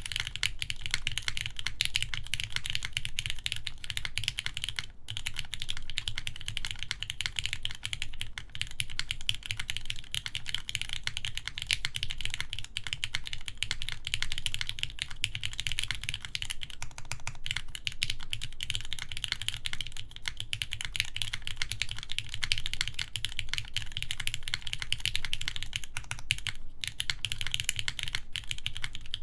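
Fast continuous typing on a mechanical keyboard with lubed Gateron X linear switches, GMK keycaps and a full aluminium plate: dense key clacks with short pauses about 5 seconds in and near the end.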